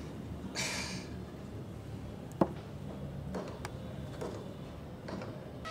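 Quiet background ambience with a steady low hum. A brief soft hiss comes about half a second in, and a single sharp click about two and a half seconds in, followed by a few faint ticks.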